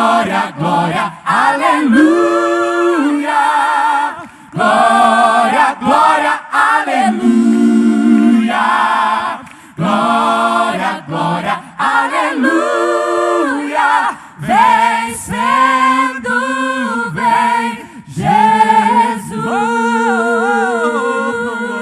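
Unaccompanied a cappella singing of a worship song, in phrases broken by short pauses, the long held notes sung with vibrato.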